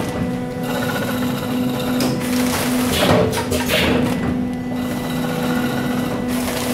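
Auger-filler powder packing machine running: a steady motor hum with repeated bursts of mechanical clatter and hiss as it cycles, roughly a second apart.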